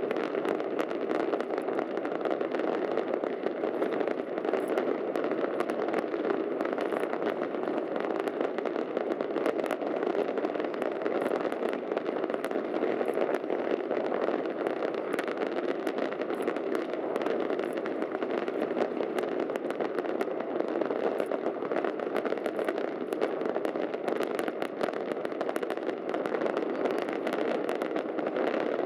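Fireworks going off without a break: a dense, steady din with many sharp crackles running through it.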